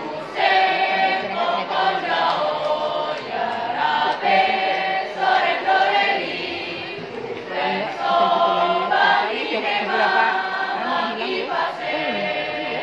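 A school choir of teenage girls and boys singing together, sustaining notes in phrases.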